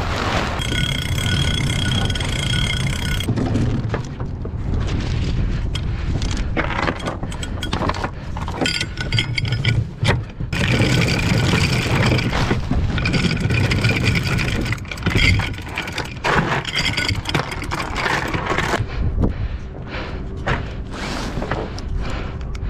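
Manual anchor windlass worked by its lever as the anchor chain comes aboard: a metallic ratcheting in two long spells, the first few seconds and then from about eight to eighteen seconds in. Wind buffets the microphone throughout.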